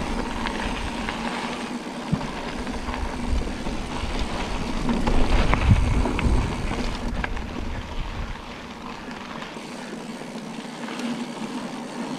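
Mountain bike riding over a dirt track at night: a deep rumble of wind buffeting the handlebar-mounted camera's microphone and tyre noise, with scattered knocks and rattles from the bike. The rumble swells about five to six seconds in and eases after about eight seconds.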